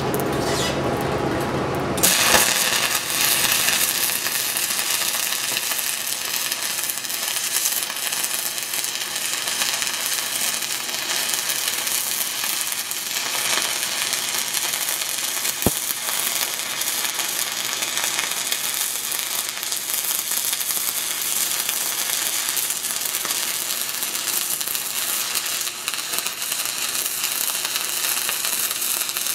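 Stick-welding arc of a 6010 electrode burning steadily as a downhill hot pass is run on steel pipe; the arc strikes about two seconds in, with one sharp click about halfway through.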